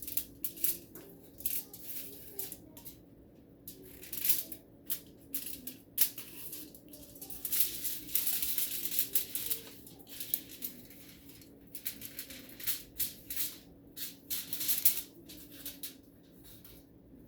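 A sheet of aluminum foil crinkling and crackling as it is handled and cut with scissors, in irregular bursts of rustle.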